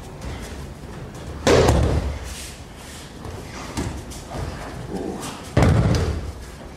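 Two heavy thuds of a body slamming onto the mat as an aikido partner is thrown and takes a breakfall, about a second and a half in and again near the end, with a few softer knocks between.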